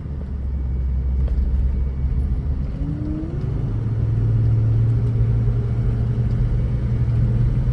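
Truck engine pulling up a steep grade under load; its low drone climbs in pitch about three seconds in as the revs rise, then holds steady at the higher note.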